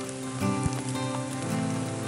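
Background music of held notes that change a couple of times, over a steady hiss.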